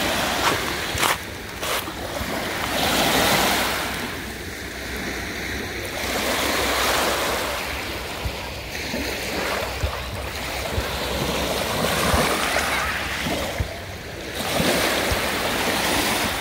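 Lake Ontario waves washing onto a sandy beach, the surf swelling and falling every few seconds, with wind rumbling on the microphone.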